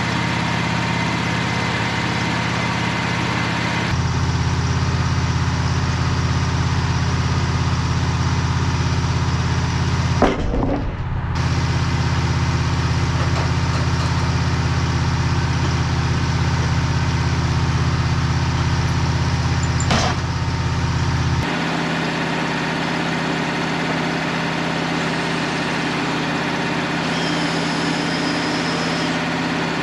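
Sawmill engine running steadily, its level changing a few times: louder about four seconds in, a brief break about ten seconds in, then lower and thinner after about twenty-one seconds.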